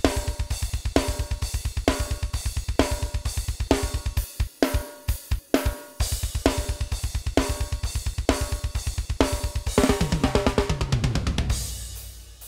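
Raw multitracked metal drum kit played back soloed: fast, continuous kick drum under snare hits about once a second, with cymbals. The kicks thin to a few strokes about four seconds in and return two seconds later. Near the end a tom fill falls in pitch before the playback fades.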